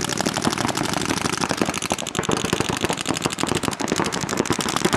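Paintball markers firing in rapid, overlapping strings of sharp pops, many shots a second without a break, from several players at once during a speedball game.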